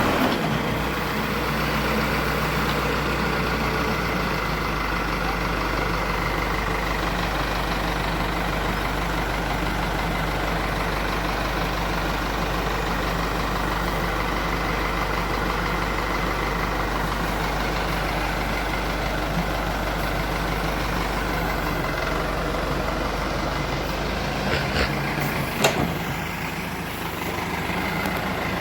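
Diesel engine of an Escorts DigMax-II backhoe loader running steadily at an even speed, with a few sharp knocks a little before the end.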